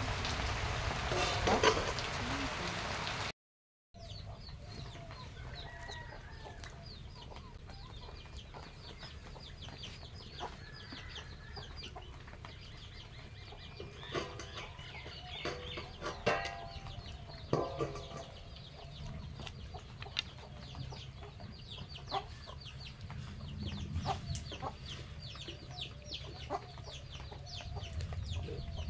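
Chickens clucking intermittently, with short calls bunched together for a few seconds near the middle, over many faint ticks and clicks. A loud steady hiss fills the first three seconds and then cuts off.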